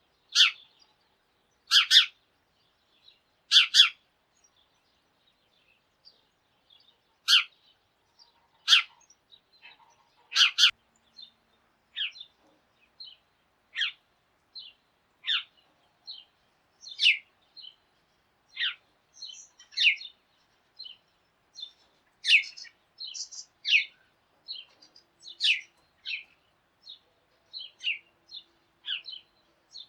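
Sparrows chirping: short, sharp single chirps. A few loud ones come every second or two at first, then a quicker run of softer chirps follows.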